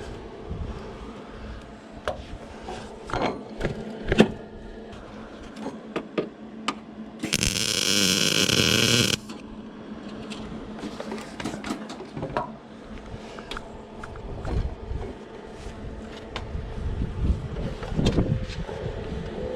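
Scattered knocks and clicks, with a hiss lasting about two seconds about seven seconds in.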